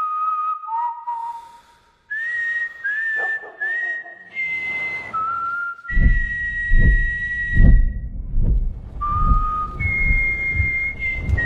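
A slow whistled tune of long held notes, each sliding up slightly into pitch. About halfway through, a low, steady thudding beat of roughly two hits a second joins it.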